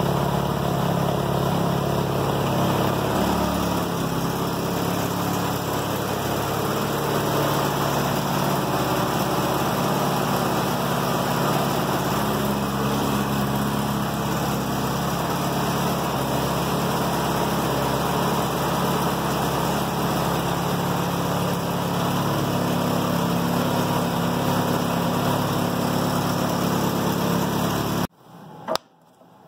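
Pickup truck engine idling steadily through a home-made exhaust of flexible steel tubing routed up to a muffler mounted on the cab roof. The sound cuts off suddenly near the end, followed by a single click.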